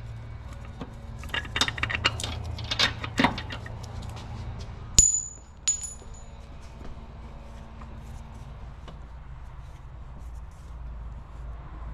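Metal tools and parts clattering during work on a worn engine mount, then two sharp, ringing metal clinks about half a second apart, about five seconds in.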